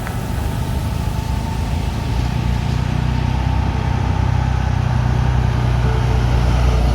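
Heavy truck's diesel engine running with a steady low rumble that grows gradually louder, as if the truck is coming closer.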